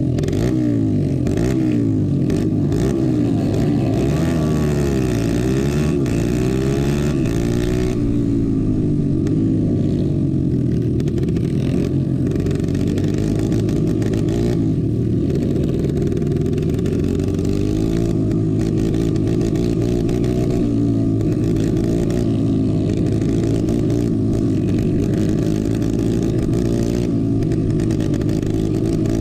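Racing kart engines running hard, several at once, their pitches rising and falling and crossing as the karts accelerate and lift off. The camera kart's own engine sounds closest, loud and continuous.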